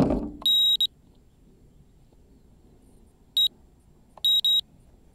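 A thump as the camera is set down, then loud, high electronic beeps: one about half a second long just after, a short single beep about three and a half seconds in, and a quick pair of beeps just after four seconds.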